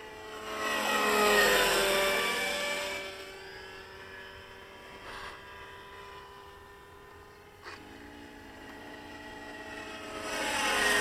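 Nitro-engined JR Vigor CS radio-controlled helicopter, with an OS 61 engine and a tuned muscle pipe, making fast passes. Its high whine swells as it comes by about a second in, drops in pitch as it goes away, and swells again near the end, with a short click in between.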